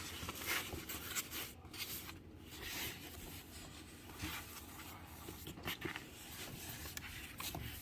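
Hands mixing a glue and cornstarch slime mixture: faint, irregular rubbing and smearing strokes.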